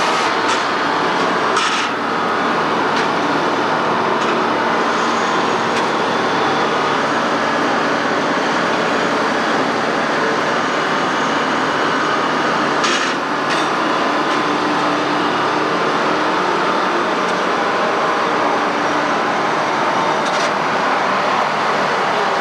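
Heavy log-yard machinery running steadily, with a few short knocks about two seconds in, around thirteen seconds in and near the end, heard through worn VHS audio.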